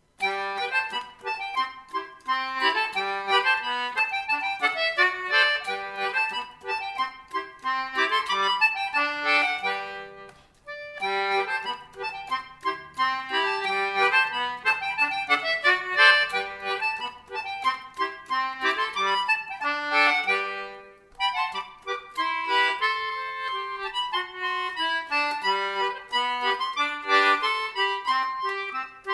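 Anglo concertina playing a brisk old English dance tune, a quick melody over lower chord and bass notes. It breaks off briefly about ten seconds in and again about twenty-one seconds in, between phrases.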